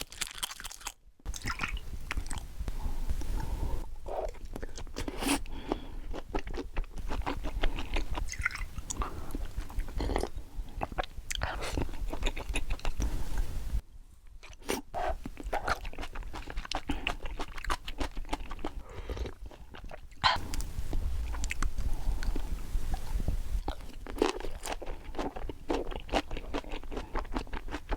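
A person chewing and eating yellowtail sashimi close to the microphone: a steady run of short mouth clicks and smacks, with a brief pause about halfway through.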